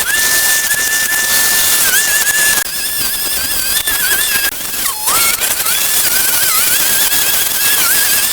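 An electric motor running with a steady high-pitched whine over a loud hiss. Its pitch dips briefly every second or two, and drops sharply once about five seconds in before recovering.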